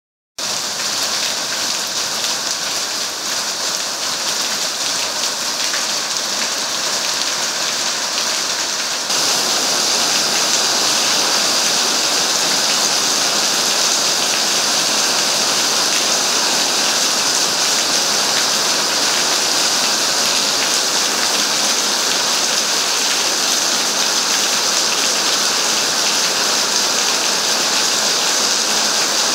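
Heavy rain pouring steadily onto paved ground and puddles, a dense, even hiss. It grows louder about nine seconds in.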